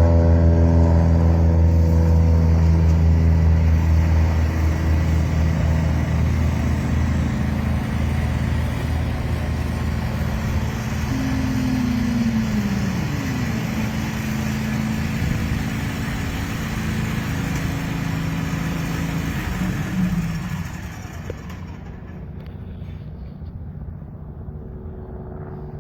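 Helicopter running with a steady low hum that slowly eases, its pitch falling partway through, then dropping to a quieter, duller level about 20 seconds in.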